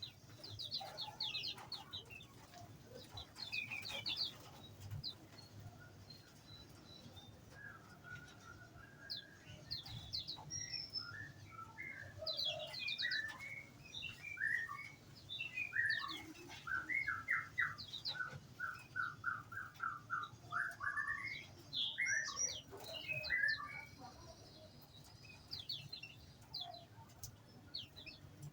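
Several small birds chirping and singing, overlapping short high chirps throughout, with a run of about a dozen evenly repeated notes in the middle.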